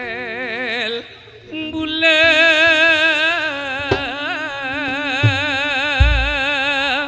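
Madurese tayub music: a singer holds long notes with heavy, fast vibrato over gamelan accompaniment, with a short break between phrases about a second in. A few drum strokes fall in the second half, the one about six seconds in deep and booming.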